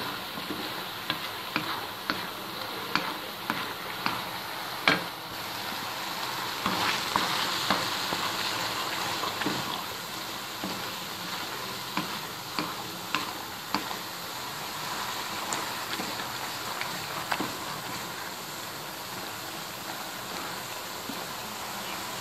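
Pot of chopped mustard greens (sarson ka saag) sizzling over a high gas flame as its water cooks off, with a wooden spoon knocking against the metal pot at irregular intervals as it is stirred.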